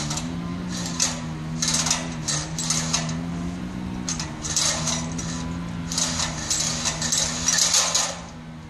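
An engine running steadily, its pitch stepping down slightly twice, with repeated bursts of hiss and crackle over it.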